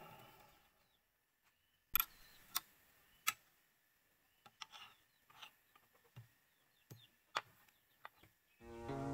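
Wood lathe spinning down, its motor sound fading away within the first second. Then come three sharp clicks and a scatter of light knocks as the stopped bowl is handled on the lathe chuck. Music fades in at the very end.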